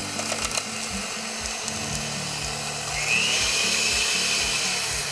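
Electric hand mixer running on low speed, its twin beaters whipping cream in a stainless steel bowl.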